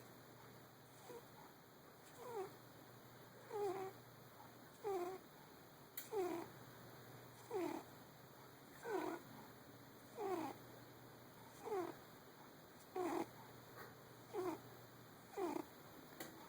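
Domestic cat snoring in its sleep: a short snore on each breath, about a dozen of them, roughly every second and a quarter, each sliding down in pitch.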